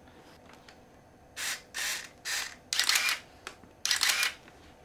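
Sigma 28-70mm Minolta A-mount zoom lens being driven by an SLR body's autofocus: five short whirring bursts of focusing, each about half a second long, starting about a second and a half in. The autofocus is working.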